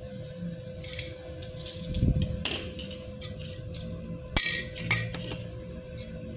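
Thin hollow steel tubes and a steel electrode holder being handled: scattered metallic clinks, knocks and scrapes, the sharpest knock about four and a half seconds in. A steady hum runs underneath.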